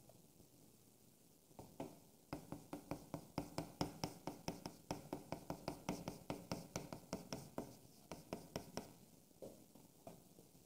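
Chalk writing on a chalkboard: a quick run of short taps and scrapes, about four a second. It starts about a second and a half in and stops near nine seconds.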